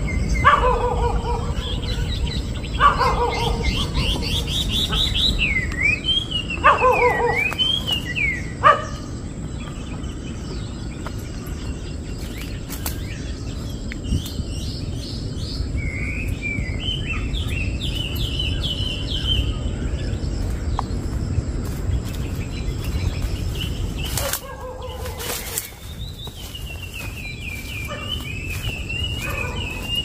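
Wild songbirds calling: a few loud calls that sweep up and down in the first nine seconds, then runs of quick high chirps later on. A low rumble on the microphone runs underneath, with a few clicks about three-quarters of the way through.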